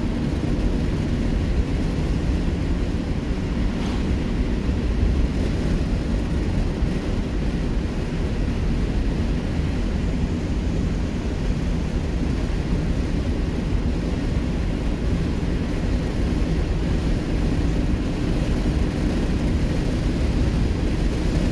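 Cabin noise of a 1967 Ford Mustang cruising: its 200 cubic inch inline six running steadily on a freshly rebuilt Holley 1940 one-barrel carburetor, under a steady rumble of road and wind noise.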